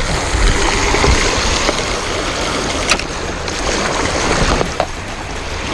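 Sea water washing and sloshing around shoreline rocks, with wind noise on the microphone. A sharp click about three seconds in and another near the end.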